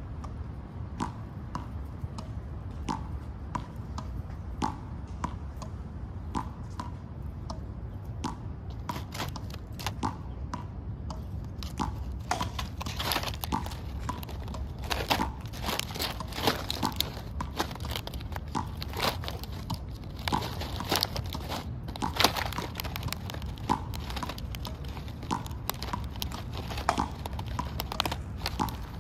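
A squirrel cracking and gnawing peanut shells and rummaging through in-shell peanuts in a plastic tray: a string of sharp crackles and clicks, sparse at first and much denser and louder from about a third of the way in.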